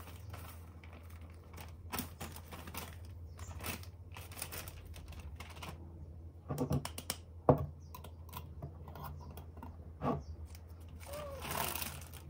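Flour poured from a plastic packet into a glass jar, with scattered light clicks and taps of the packet, fingers and glass, a sharp click a little past the middle, and a metal screw lid put on the jar near the end.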